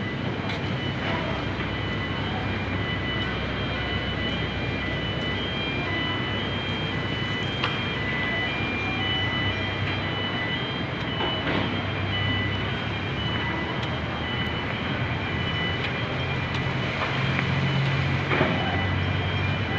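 Steady running noise of a vehicle moving along the bridge deck, heard from on board: a continuous rumble and hiss with a low hum that grows a little louder near the end. A faint high whine runs through it, cutting in and out.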